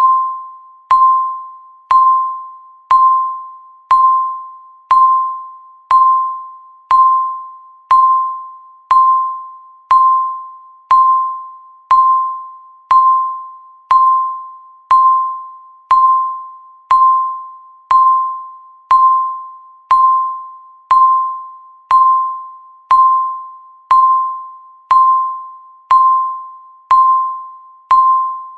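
Countdown timer beeping once a second: a short single-pitched electronic tone that starts sharply and fades quickly, repeating evenly to mark each second.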